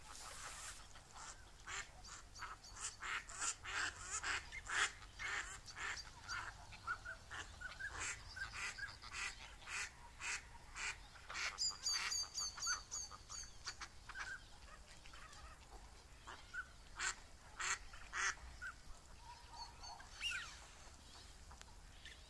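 Ducks kept as live hunting decoys quacking loudly and repeatedly, in runs of short calls. A run of high, quick repeated notes joins them about halfway through.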